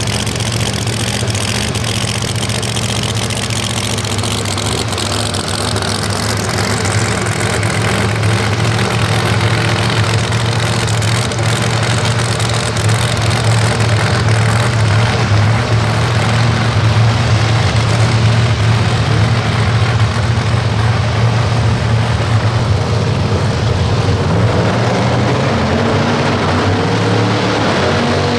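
Supercharged V8 of a Lamborghini-bodied drag car idling steadily. The engine note starts to rise near the end.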